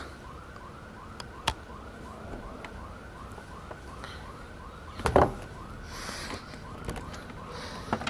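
A faint siren-like warbling tone that rises and falls quickly over and over, about three times a second. There is a short thud about five seconds in.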